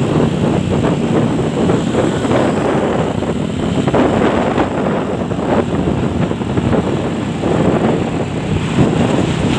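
Wind rushing over the microphone of a moving motorcycle, with the engine and road noise of the ride running steadily underneath.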